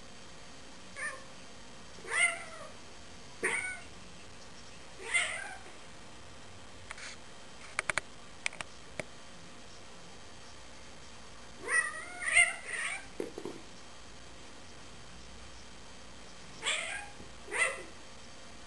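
A cat meowing: several short meows spread out with pauses between them, with a few sharp clicks near the middle.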